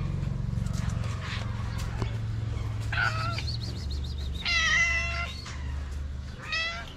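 A calico cat meowing three times, about a second apart, the middle meow the longest and loudest.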